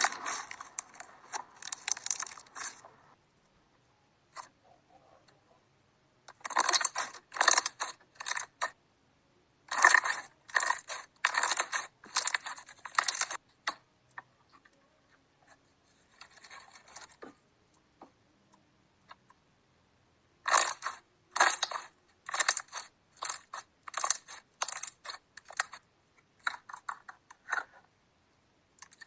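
Slime being squeezed and worked by hand, giving bursts of crunchy crackling and popping clicks, in several separate stretches with quiet gaps between them.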